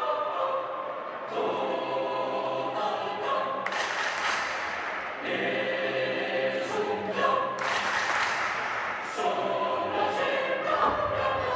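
Youth choir singing held chords that move to new notes every second or two. Twice, a rush of noise rises over the singing for a second or so.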